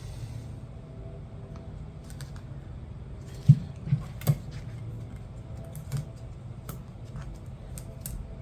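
Clutch plates and steels from a 4L80E transmission's third-gear clutch pack clinking as they are handled for inspection: scattered light clicks, three sharper ones in quick succession about halfway through, over a steady low hum.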